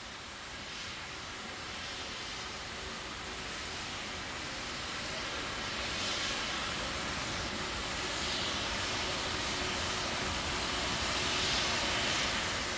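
Steady rumbling roar of the Terran 1 rocket's first-stage engines during ascent. It is an even noise with no clear tone, slowly growing louder.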